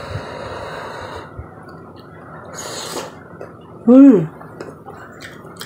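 Someone eating rice porridge from a spoon: a short airy slurp, then about four seconds in a loud closed-mouth "mmm" of enjoyment that rises and falls in pitch.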